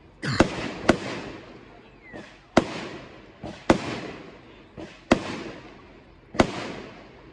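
Horn Dog "Red Ruby" consumer fireworks cake firing a string of shots: six sharp bangs about a second apart, each trailing off in a fading hiss.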